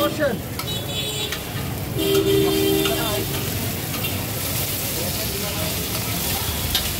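Kabab sizzling as it cooks, a steady hiss. About two seconds in, a held tone lasts roughly a second over it.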